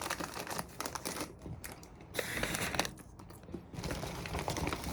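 Paper fast-food packaging crinkling and rustling as it is handled: a run of short crackles, with a longer rustle a little over two seconds in.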